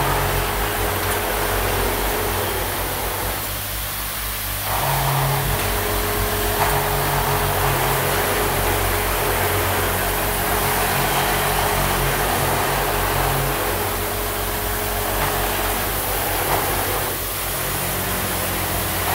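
Automatic deodorant-stick assembly machine running: the steady low hum and buzz of its vibratory bowl feeders, with the clatter of parts and mechanism over it.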